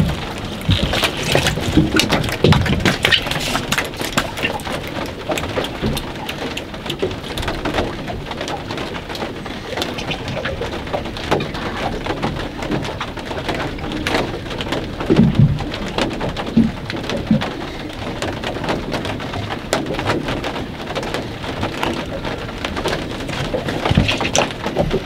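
Steady rain, with a dense patter of drops striking close to the microphone, and a few dull low thumps around the middle.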